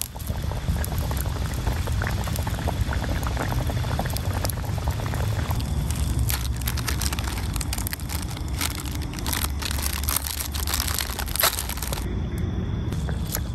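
Fish soup boiling hard in a wok, a steady bubbling rumble. From about six seconds in, an instant-noodle packet's plastic wrapper crinkles as it is torn open.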